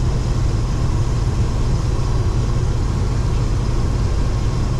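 Case IH 2388 combine running steadily: an even, low diesel drone with machinery hum.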